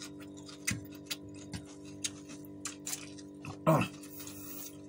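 Scattered small clicks and taps of people eating by hand and handling food and dishes at a table, over a steady low hum. About three-quarters of the way in comes one brief, louder voice-like sound.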